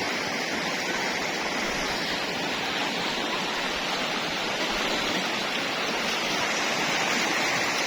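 River water rushing steadily, an even noise with no change.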